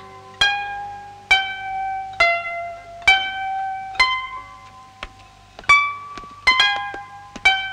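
Background score: a slow melody on a plucked string instrument, single notes about one a second, each ringing on and fading before the next.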